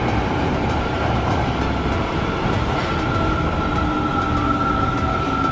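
Subway train running along the platform, a steady rumble with a level, high-pitched squeal that grows louder from about two seconds in.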